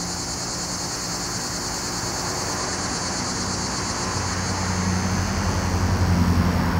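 Steady high-pitched buzz of insects, with a low engine drone that grows louder over the second half.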